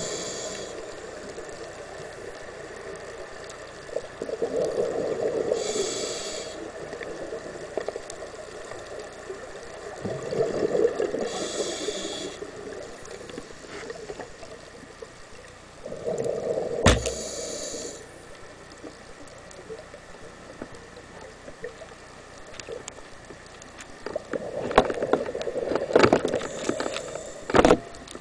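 Scuba diver breathing through a regulator underwater: each breath brings a short hiss on the inhale and a swell of gurgling exhaled bubbles, repeating about every six seconds. A sharp knock comes about two-thirds through, and a cluster of clicks and knocks comes near the end.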